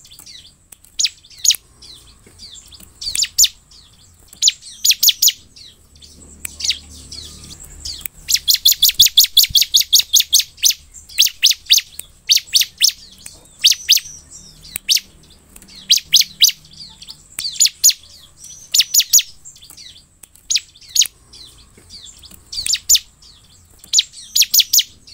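Bar-winged prinia (ciblek) singing: short bursts of rapid, sharp chirps repeated every second or two, with a longer fast trill about 8 to 11 seconds in.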